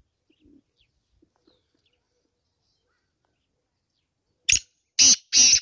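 Black francolin calling: a quick run of three harsh, grating notes about four and a half seconds in, after a quiet stretch with only faint small clicks.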